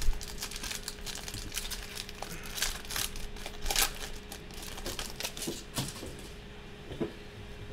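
Foil wrapper of a pack of football trading cards crinkling and tearing as it is ripped open by hand. The crackling dies down about six seconds in.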